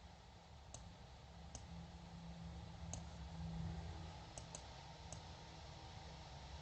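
Faint computer mouse clicks, about six spread unevenly over a few seconds, over a steady low hum.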